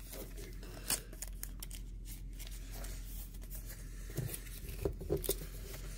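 Trading cards being handled: scattered light rustles and short clicks of cards and plastic card holders being sorted and set down, over a steady low hum.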